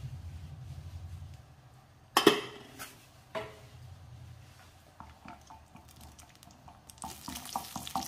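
Cashew nuts frying in ghee in a non-stick kadai, stirred with a wooden spatula: two sharp knocks against the pan about two and three and a half seconds in, light scraping taps, and a soft sizzle that grows near the end. A low hum fades out in the first second or so.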